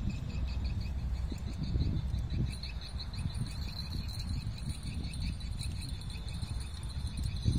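Insects trilling in a high, rapidly pulsing drone, with wind buffeting the microphone in a low, uneven rumble.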